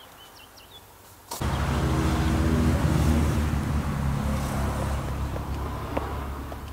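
A motor vehicle's engine, low and loud, starts suddenly about a second and a half in, then slowly fades away. A few bird chirps come before it.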